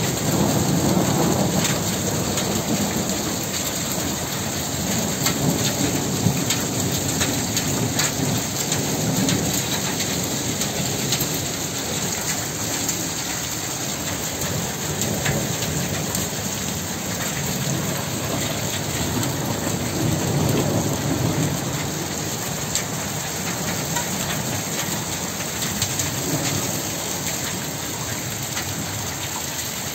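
Heavy thunderstorm rain falling steadily, with many sharp drop impacts close by. Low rolling thunder rumbles swell under it near the start and again about two-thirds of the way through.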